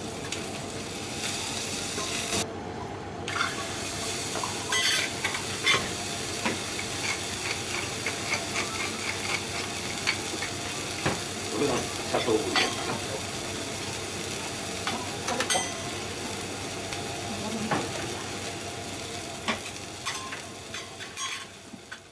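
Beef steak searing on a hot teppanyaki griddle, a steady sizzle, with a metal spatula scraping and clicking against the iron plate now and then.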